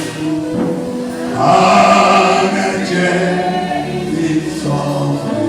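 A group of voices singing a slow gospel worship song together, swelling louder about a second and a half in.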